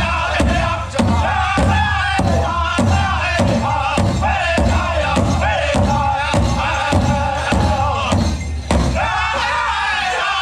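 Powwow drum group playing a chicken dance contest song: a large shared drum struck in a steady beat, a little under two strikes a second, under high-pitched group singing. The singing breaks off briefly about eight seconds in, while the drum keeps going.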